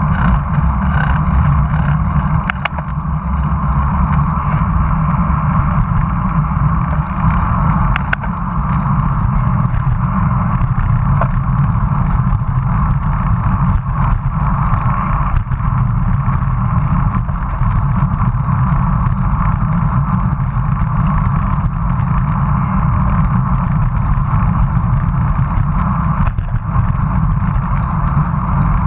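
Steady rush of wind buffeting the microphone of a bicycle-mounted action camera while riding, with rolling tyre and road noise underneath. A couple of sharp clicks break through early on.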